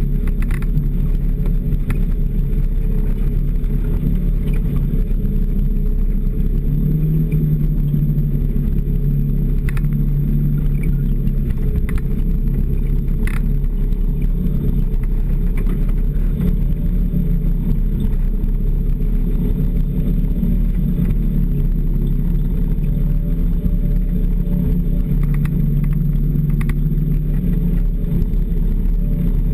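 Snowmobile engine running steadily as it travels along a snow trail, its pitch rising and easing a little with the throttle, with a few faint clicks.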